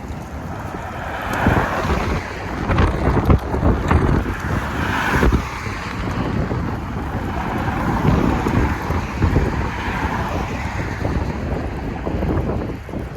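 Strong gusty wind buffeting the microphone: low rumbling thumps over a steady rushing noise that swells and fades.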